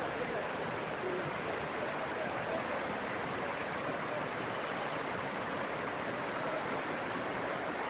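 Rushing water of a mountain stream, a steady unbroken rush.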